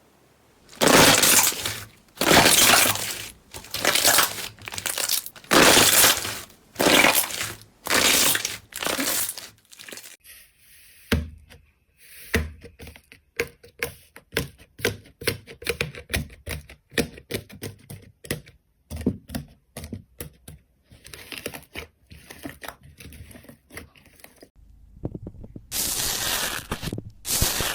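Slime being pressed and squeezed by hand, crunching and crackling: about eight loud crunches roughly one a second, then a longer stretch of quicker, quieter pops and clicks, and loud crunching again near the end.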